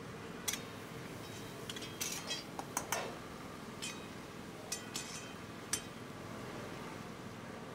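A metal spatula clinks and scrapes against small iron karahi pans as curry is stirred. The sharp clinks come at irregular intervals and are busiest about two to three seconds in.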